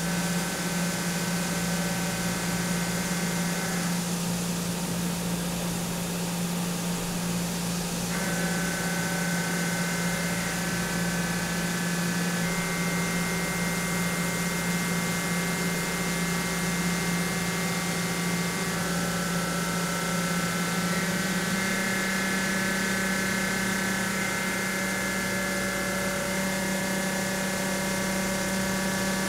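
Doosan DNM 5700L CNC vertical machining center milling titanium with a Dual Lock radius cutter under flood coolant: a steady hum of the spindle and cut over a hiss of coolant spray. Several high steady tones switch in pitch every few seconds.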